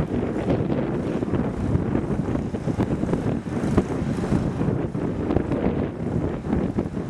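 Wind buffeting the camera microphone with a heavy, gusting rumble.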